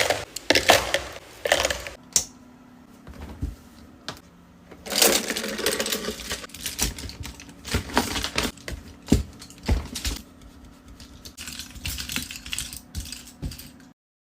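Brushes being cleaned: bristles rubbed and tapped in quick irregular bursts of clicks and swishes, cutting off abruptly near the end.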